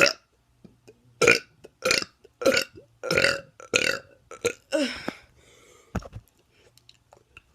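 A teenager burping over and over: a run of about six short, loud, voiced burps a little over half a second apart, then fainter, breathier ones trailing off after about four seconds.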